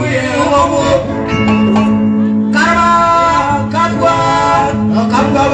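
Men singing into microphones over live backing music, amplified through a PA system.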